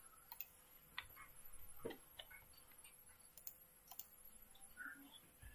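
Near silence broken by a few faint, irregular clicks of a computer mouse and keyboard.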